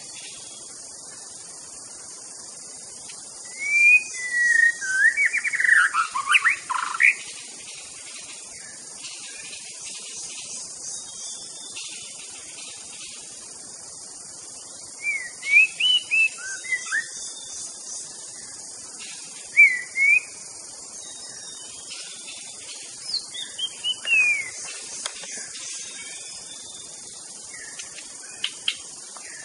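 White-rumped shama (murai batu) singing loud, fast whistled phrases in several bouts with pauses between them, over a steady high hiss.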